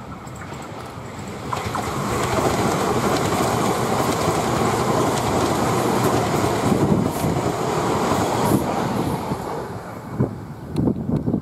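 Auckland AM class electric multiple unit passing: the rumble and clatter of its wheels on the rails grows over the first couple of seconds, stays loud for several seconds as the cars go by, then fades. A few gusts of wind hit the microphone near the end.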